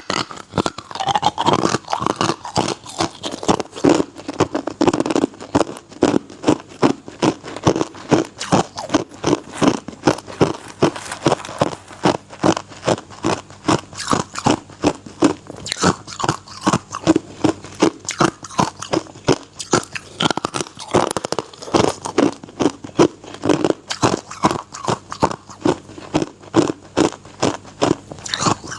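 Hard ice being bitten and chewed: loud, sharp crunches, about three a second, in a steady chewing rhythm.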